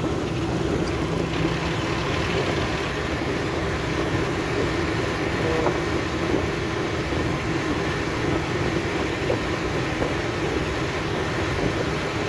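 2009 Ford Explorer engine running steadily at idle, a constant even hum with no clicks or changes.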